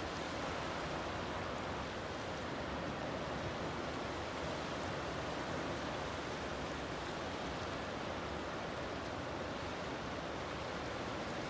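Small waves washing onto a sandy beach, a steady surf hiss.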